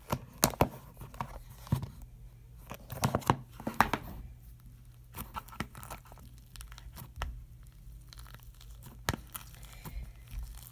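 Sticky Rice Krispie slime being poked and pulled apart by fingers in a plastic container: irregular crackling and sticky tearing, busiest in the first second and again around three to four seconds in, with a sharp click near the end, over a faint low hum.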